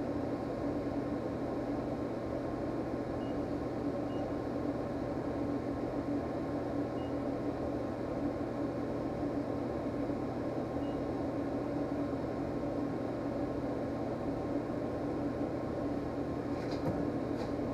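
ProtoTrak lathe spindle and collet chuck running at speed with a steady hum, plus a few light clicks shortly before the end.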